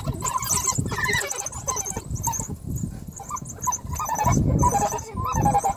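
A pack of African wild dogs at a kill, twittering with many short, high chirps while they feed and jostle. There is heavy scuffling close by, loudest from about four seconds in.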